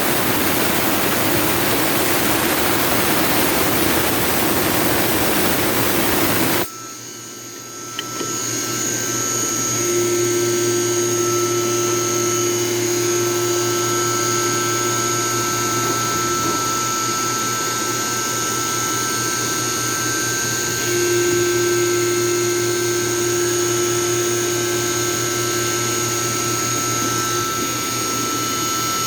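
CNC milling machine running with emulsion coolant: a loud, steady rushing noise cuts off abruptly about seven seconds in, leaving the machine's steady whine of several tones, with a lower hum that comes in and drops out twice.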